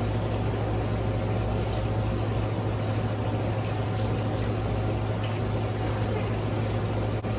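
Steady splashing of a small patio waterfall, with a low steady hum underneath.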